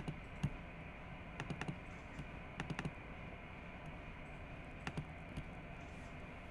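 Computer keyboard keys clicking in a few short clusters of taps, over a faint steady background hum.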